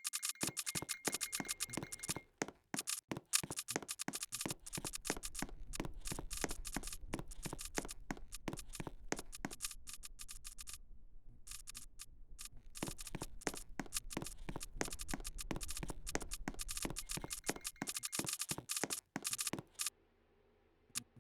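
Rapid, irregular clicking, several sharp clicks a second, with a low hum under it through the middle stretch. The clicking breaks off briefly about eleven seconds in and stops shortly before the end.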